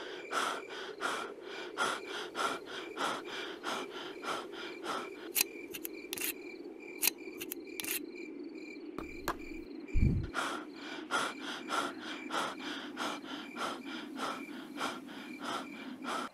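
A boy panting fast in fright, about three breaths a second, over a steady chirring of crickets. The panting breaks off briefly around eight seconds in, with a few sharp clicks just before, and a deep thump sounds about ten seconds in.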